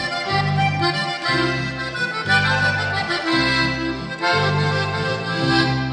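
Regional Mexican corrido played instrumentally: an accordion plays the melody over an electric bass line of long low notes changing about once a second.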